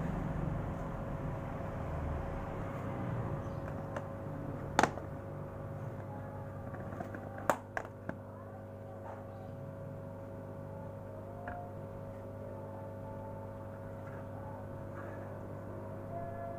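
Plastic tub, bowl and spoon being handled: a few sharp clicks and knocks, the loudest about five seconds in and a quick group about seven and a half seconds in, over a steady low hum.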